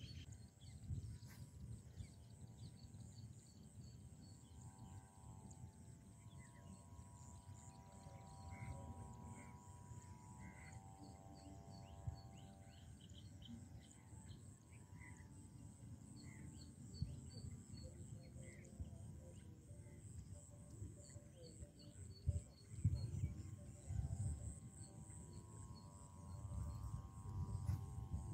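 Outdoor ambience with a steady high buzz, scattered short chirps and low wind rumble on the microphone. A long held drone with several even pitches comes in twice, midway through and again near the end.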